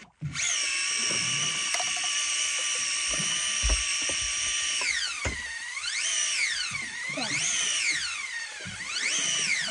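Electric fishing reel motor whining as it winds in a heavy fish, the motor running hot. It holds a steady pitch for about five seconds, then sags and recovers three times as the fish pulls against it.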